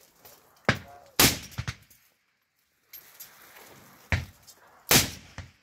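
Four gunshots, two about a second in and two more near the end, each with a short echo after it; the second is the loudest.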